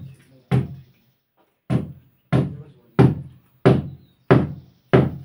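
Hammer blows striking the wall in a steady rhythm: about eight sharp, heavy knocks, roughly two-thirds of a second apart, with a longer pause after the second blow.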